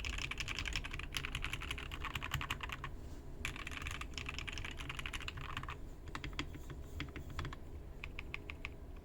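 Mechanical keyboard with lubed Gateron Black Ink V2 linear switches on a polycarbonate plate, with ABS keycaps, typed on quickly: two fast runs of keystrokes split by a short pause about three seconds in, then slower, separate keystrokes in the last few seconds. The keystrokes sound poppy rather than deep.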